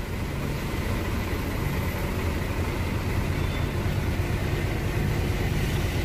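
Hino 500 truck's diesel engine idling steadily, heard from inside the cab.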